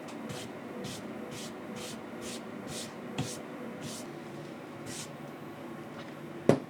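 Cleaning rubber scrubbed back and forth across a diamond sharpening stone: short, hissy rubbing strokes about two a second that die away after about five seconds, then one sharp click near the end.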